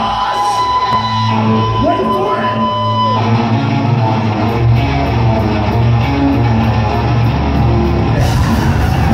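Hardcore punk band playing live, heard loud from within the crowd, with electric guitars, bass and drums. For the first three seconds a steady high tone holds under shouting voices. Then the band comes in fuller, with a heavy low end and a steady beat, and the sound brightens near the end.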